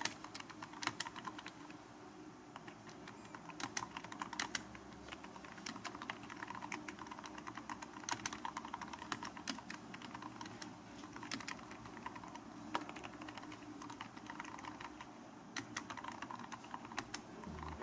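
Typing on an iNote 38BT Bluetooth keyboard with a key-skin cover fitted over its round keys: a quiet, irregular patter of key presses.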